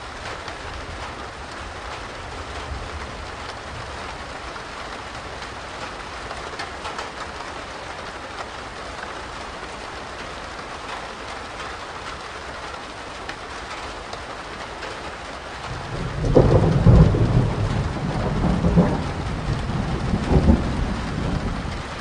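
Medium rain falling steadily, with a low thunder rumble that comes in about three-quarters of the way through and swells louder several times.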